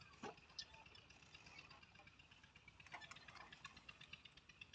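Near silence, with a few faint, short clicks scattered through it.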